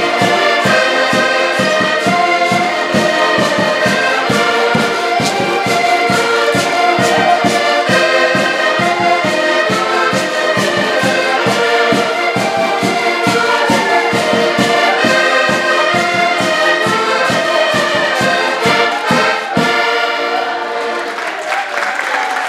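A group of button accordions playing a lively traditional Portuguese dance tune together over a steady pulsing bass beat. The tune ends a few seconds before the end, and clapping and voices follow.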